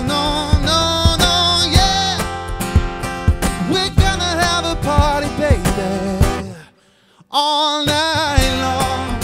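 Acoustic guitar strummed with a man singing over it, a live acoustic cover. The music drops out for about half a second roughly seven seconds in, then comes back in.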